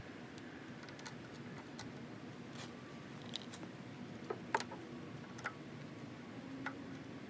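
Scattered light clicks and taps of small parts and hand tools being handled during lawnmower repair. The loudest pair comes about four and a half seconds in, over a low steady background hum.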